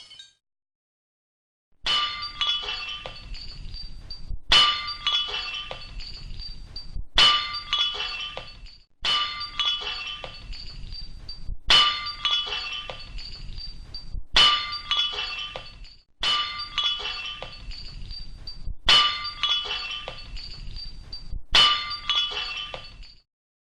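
Glass breaking, about nine times in a row, every two to three seconds: each a sharp crash followed by high tinkling shards that die away.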